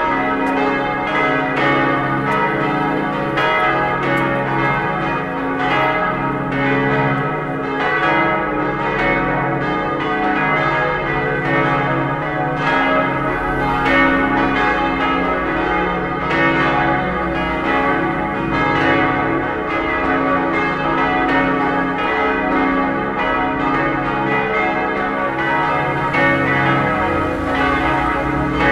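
Church bells swinging and ringing together in a continuous peal, their strokes overlapping densely. The peal's five bells are tuned to D-flat, E-flat, G-flat, A-flat and B-flat.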